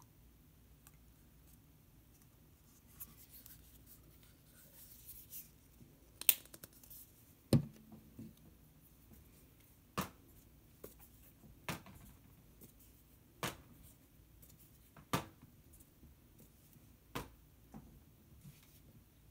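Painting sounds: a brush moving faintly over paper, then a series of sharp taps about every one and a half to two seconds, the first two the loudest.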